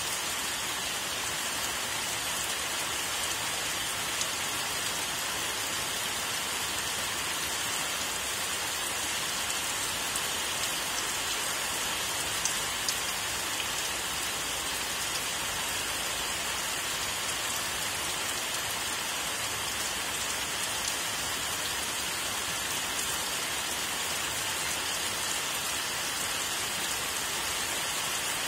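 Steady rain falling on leafy trees: an even hiss, with a few sharper close drop hits now and then.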